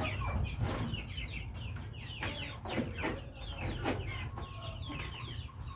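A flock of chickens clucking and calling, many short overlapping calls.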